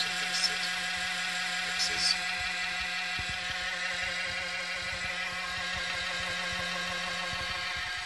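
Power supply cooling fan of a Vector 3 3D printer running with a loud, wavering whine over a steady low hum, the noise it makes when cold. The owner suspects a dry fan bearing.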